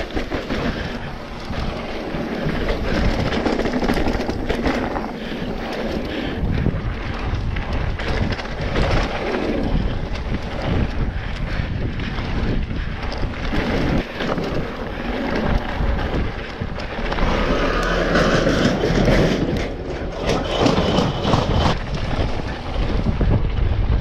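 Wind buffeting the microphone on a fast mountain-bike descent, over the rumble of tyres on dirt and frequent knocks and rattles of the bike over bumps.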